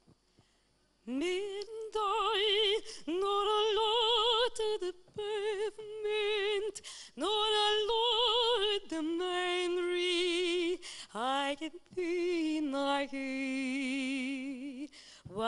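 A woman's solo voice singing slow, long-held notes with wide vibrato, in several phrases with short breaths between them, with no instruments heard. It comes in about a second in.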